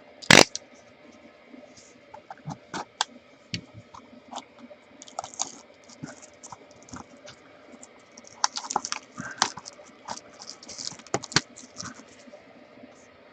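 A small cardboard trading-card mini box being handled and opened by hand: scattered clicks, taps and short scratchy rustles of cardboard and wrapping, with one sharp knock just after the start.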